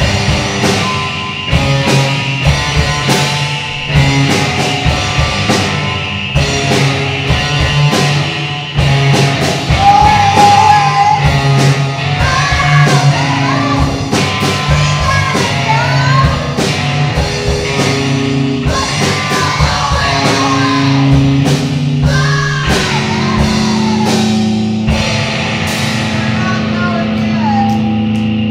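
A fastcore band playing live: rapid drumming under guitar and bass, with shouted, wavering singing coming in about ten seconds in.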